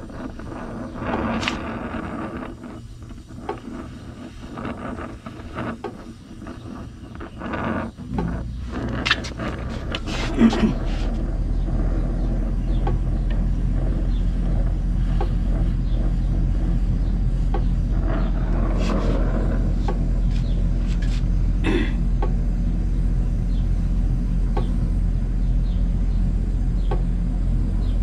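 Gas torch brazing copper refrigerant pipe joints on an air-conditioner compressor, with a few sharp metal clicks about nine to ten seconds in. From about ten seconds in, a steady low mechanical hum, like an idling engine, sets in and is the loudest sound.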